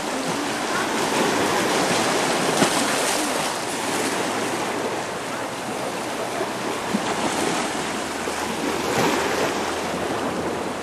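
Small sea waves breaking and washing over rocks and a pebble shore: a steady rushing surf that swells and eases.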